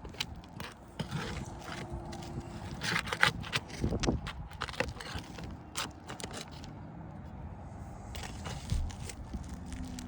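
Shingles being pried loose, with scraping of tool against shingle and scattered sharp clicks and knocks as the nails are worked free.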